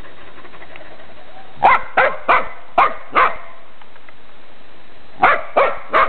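Dog barking sharply, a quick run of five barks, a pause, then three more, over a steady background noise.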